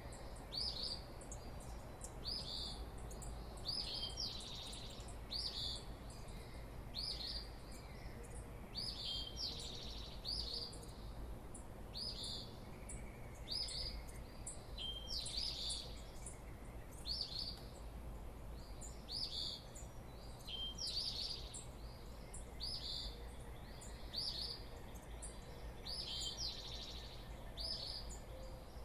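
Dawn chorus: a songbird repeats a short, sharp, high call note a little faster than once a second, over a faint steady low hum.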